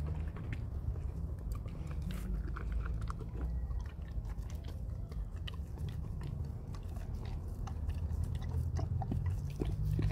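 Dobermann chewing and crunching a piece of frozen watermelon, with irregular short crunches and clicks of teeth on ice, over a low rumble.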